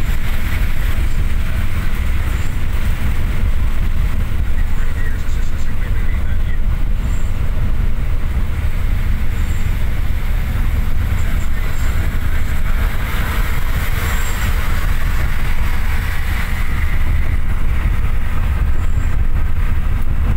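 Inside a moving bus: steady low engine and road rumble, with tyres running on a wet road.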